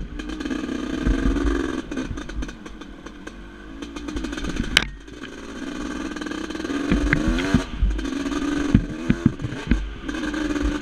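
1989 Yamaha YZ250WR's single-cylinder two-stroke engine revving up and down under riding load, easing off about halfway and then picking up again. Knocks and clatter run through it, with one sharp crack about five seconds in.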